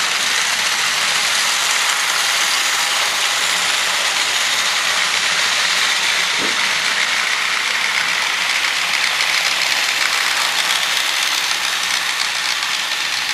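Several battery-powered TrackMaster toy trains running together on plastic track: a steady whirring clatter of their small motor gearboxes and plastic wheels.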